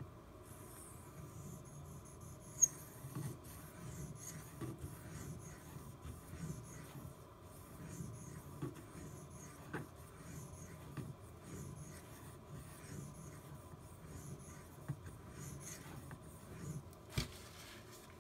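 1095 carbon-steel pocketknife blade stroked over and over across a Shapton Glass whetstone, a steady run of short rasping strokes, with one sharp click about a second before the end.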